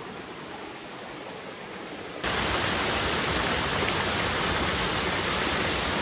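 Steady rush of flowing creek water, cutting suddenly about two seconds in to a much louder, even rush of a small waterfall pouring over rocks.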